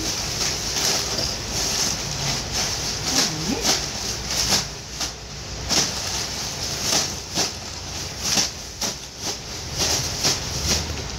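Thin clear plastic bag crinkling and rustling in irregular bursts as it is grabbed, squeezed and pushed across a tiled floor.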